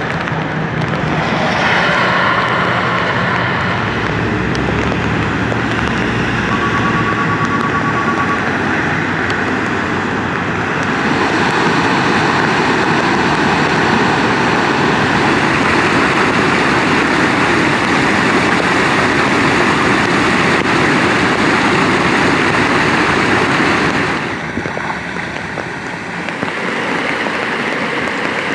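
Cars driving through floodwater on a road, their tyres splashing and hissing through the standing water. Later, muddy storm runoff rushes and churns steadily over rocks and down a channel.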